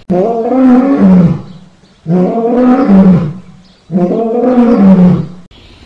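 Lion roar sound effect played three times in a row, the same roar repeated each time, about a second and a half long and starting and stopping abruptly.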